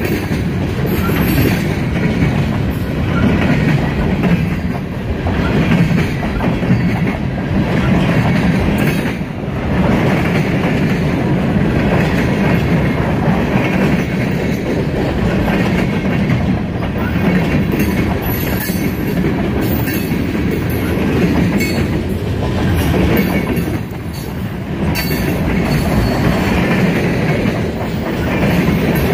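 Mixed freight train passing close by: tank cars, boxcars and covered hoppers rolling past with a loud, steady rumble and wheels clattering over the rail joints.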